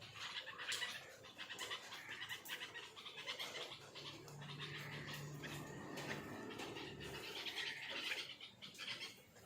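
Faint, short chirps of a bulbul chick, repeated about once a second.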